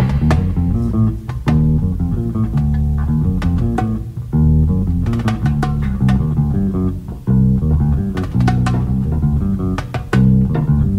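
Instrumental background music: a bass line moving in steps under plucked guitar, with a steady beat of sharp plucked or struck notes.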